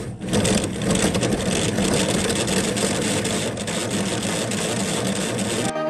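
Cordless drill running under load, its bit boring into the car's sheet-metal strut tower to make holes for front camber plates: a steady grinding drill whine that cuts off abruptly near the end.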